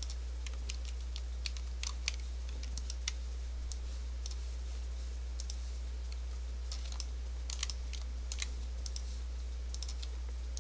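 Clicks of a computer mouse and keyboard: scattered single and double clicks at an uneven pace, over a steady low electrical hum.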